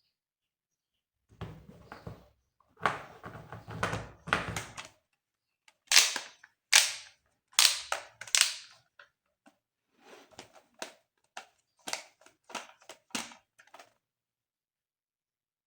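Plastic toy gun being handled and fired: a stretch of rattling and clattering, then four sharp shot-like snaps about a second apart, then a run of lighter clicks.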